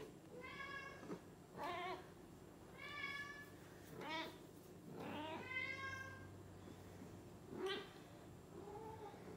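Domestic cat meowing and yowling in a string of about seven calls, some short and some drawn out, the longest and loudest in the middle.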